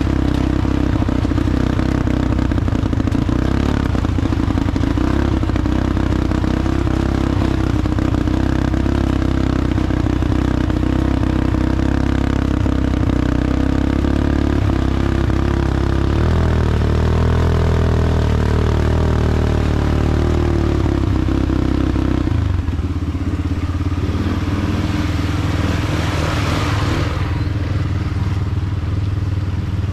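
ATV engine running steadily under way, its pitch rising and then falling about two-thirds of the way through. Near the end there is a short swelling rush of noise.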